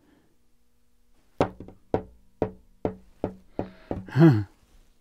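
Small rubber ball (the bouncing one of a bounce/no-bounce ball pair) dropped onto a tabletop, bouncing about seven times with the knocks coming faster and faster as the bounces die down. A short voiced exclamation follows near the end, the loudest sound.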